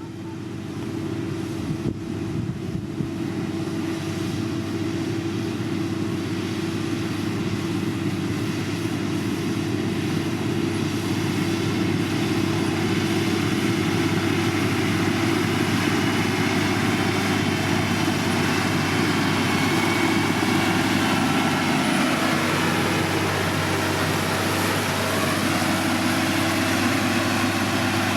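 Heavy road-construction machine's diesel engine running steadily, growing louder over the first several seconds and then holding level.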